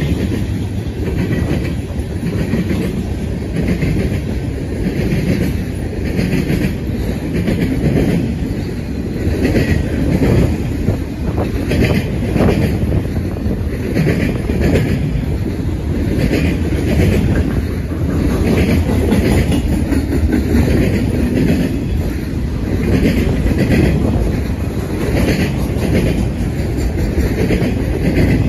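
Freight train cars rolling past at speed: hoppers and autoracks. A steady rumble of steel wheels on rail, with a clickety-clack that repeats about once a second as the wheel sets go by.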